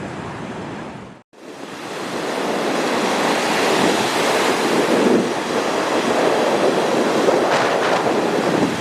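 Sea surf washing onto the beach, a steady surging rush of waves, with some wind on the microphone. It begins after a brief drop-out about a second in.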